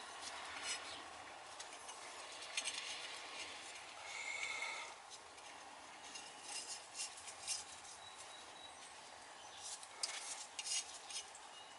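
Gloved hands handling a wooden thread gauge and rummaging through a metal box of faucet seats: faint rustling and small clicks, with a brief squeak about four seconds in and a cluster of clicks near the end.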